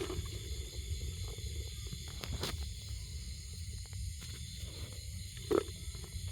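Outdoor night background: a steady low rumble under a steady high-pitched hiss with faint held tones, broken by a few soft clicks and one short knock about five and a half seconds in.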